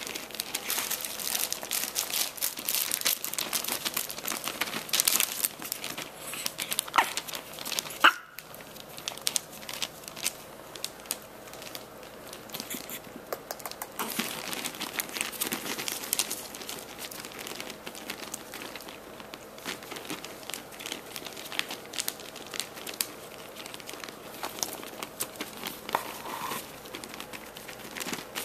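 Newspaper rustling and crinkling under Chihuahuas' paws as they walk and scramble across it: a continuous patter of paper crackles, busier in the first half.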